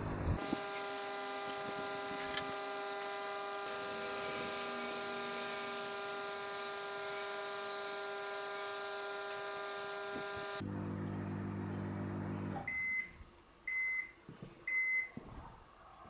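A Lumina microwave oven running: a steady electrical hum made of several stacked tones, which drops lower for its last two seconds and then stops. Three short beeps follow about a second apart, the signal that the cooking cycle has finished.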